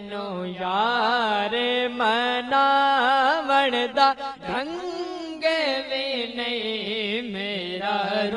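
Two male voices singing an Islamic devotional song (naat) into microphones: one carries a wavering, richly ornamented melody while a steady low hum is held underneath.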